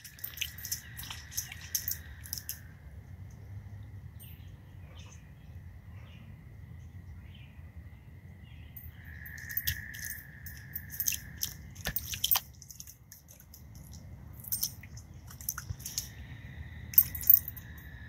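A chorus of frogs trilling steadily, swelling for a few seconds at a time. Footsteps crunch and snap on dry leaves and fallen branches over it, with two sharp snaps near the end.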